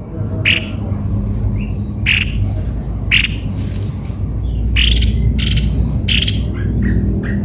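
A cucak kopi-kopi bird giving short, harsh, squawky call notes, roughly one a second with irregular gaps, over a steady low rumble.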